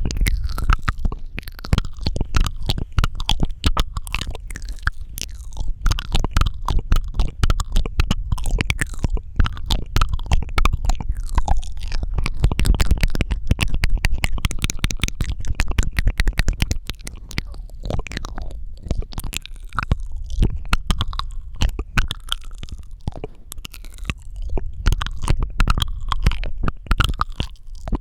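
Close-miked ASMR mouth sounds: a dense, continuous stream of wet lip and tongue clicks and smacks, with a low rumble underneath.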